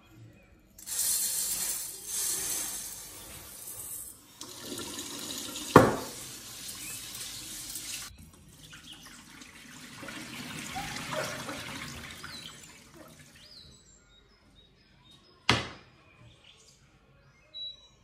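Kitchen tap running into a sink while rice is rinsed in a stainless steel pot and the cloudy water poured off, with a sharp knock partway through. The water stops about three-quarters of the way in, followed by a single sharp knock.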